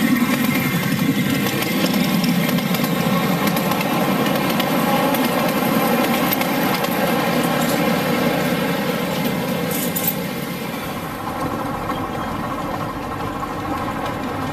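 Small engine of a 7½-inch gauge ride-on miniature train running steadily, louder for the first ten seconds and then easing off.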